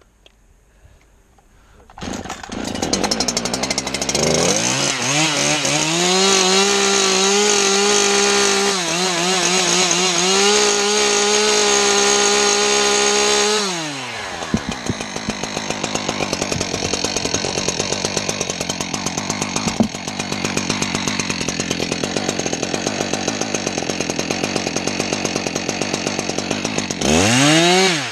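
Husqvarna two-stroke chainsaw that comes in after about two seconds of near silence and runs at full throttle for about ten seconds, its pitch wavering. It then drops to a pulsing idle, and near the end it revs up again as it bites into the pine trunk.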